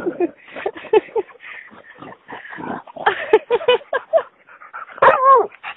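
Dogs play-fighting up close: quick breathy snuffling with several short yips, and a longer whine a little after five seconds.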